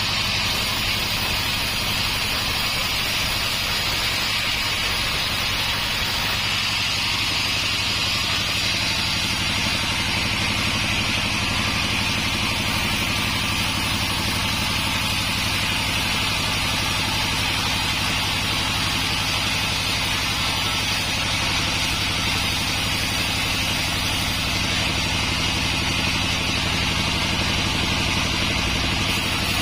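Homemade sawmill running steadily while sawing through an acacia log: a constant motor hum under an even, high hiss from the cut.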